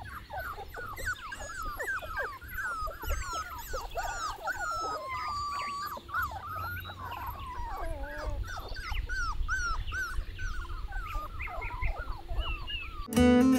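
A litter of German Shorthaired Pointer puppies whining and squealing together, many short high-pitched cries overlapping without a break. Acoustic guitar music comes in just before the end.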